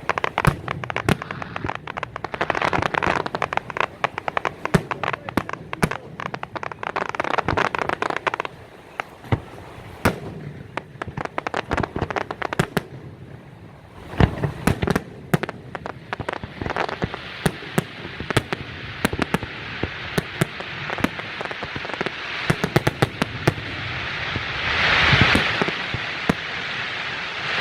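Aerial fireworks display: a rapid run of shell bursts and sharp bangs with crackling stars between them. Mid-way it thins to scattered bangs, then a dense crackling swells and is loudest near the end.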